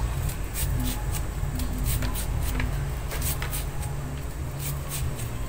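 Kitchen knife slicing raw peeled shallots held in the hand: a series of crisp, crunchy cuts, about two or three a second.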